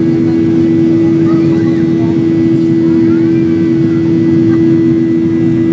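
Boeing 737 jet engines at climb thrust, heard from inside the passenger cabin: a loud, steady drone with a strong low hum throughout.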